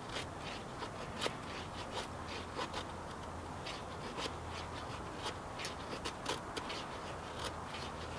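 Knife blade shaving thin curls off a wooden stick to make a feather stick: a run of short, irregular scraping strokes, a few a second. The stroke is testing a knife edge just sharpened in the field on a small stone and strop.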